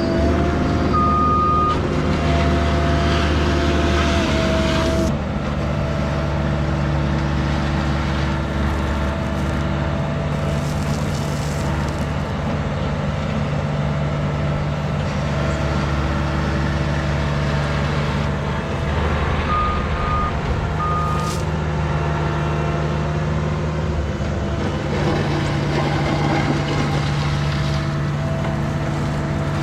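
Diesel engine of construction equipment running steadily under work, with a backup alarm giving short beeps about a second in and a few more about two-thirds of the way through.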